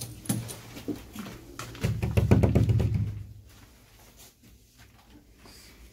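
Adana pigeons cooing: a low rolling coo lasting about a second, starting about two seconds in, after a few light ticks.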